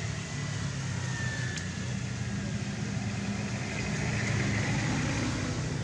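Steady low hum of a vehicle engine running, a little louder about four seconds in.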